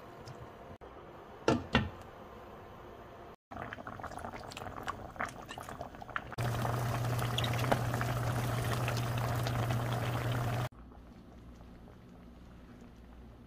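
Cutlassfish braising in spicy broth in a frying pan, boiling hard with a steady bubbling over a low hum for about four seconds in the middle. This is the loudest sound. Earlier, two sharp knocks as a wooden spoon spreads the chili seasoning paste in the pan.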